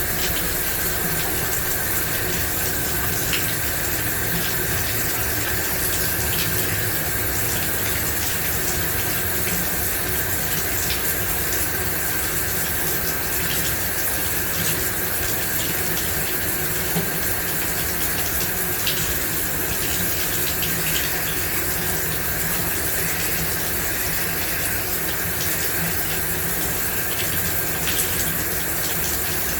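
Shower running steadily, water spraying and splashing in an even hiss with small drips and ticks.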